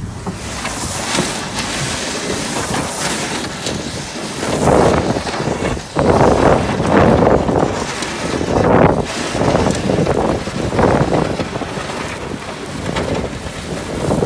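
Ford F-350 pickup with a Boss V-blade plow pushing through deep snow: a steady rushing noise, like surf, that swells and falls every second or two from about four seconds in.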